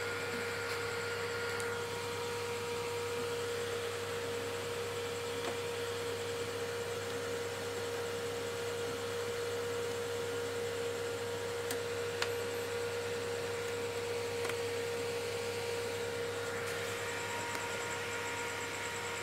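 Steady electrical hum with a background hiss, and a few faint clicks around the middle.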